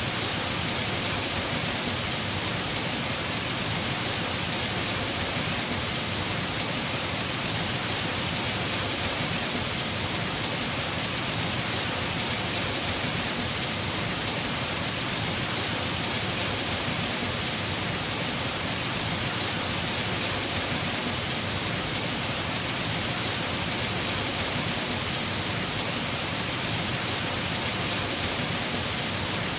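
Heavy rain falling steadily on a house roof, an even, unbroken hiss.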